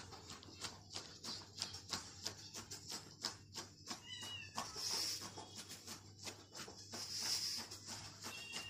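A long-haired white kitten mewing up at an adult white cat, with a short high call falling in pitch about four seconds in and another near the end. Two short hissing bursts come between the calls, over a faint steady low hum.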